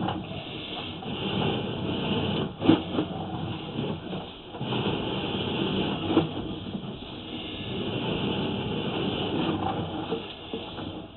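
Sewer inspection camera being pulled back through the pipe: a steady rattling, scraping noise, with a sharp knock a little under three seconds in.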